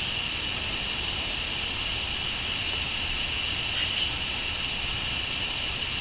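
Steady outdoor background noise: a low rumble under a constant high-pitched hiss or buzz, with two faint short high chirps, one about a second in and one around four seconds.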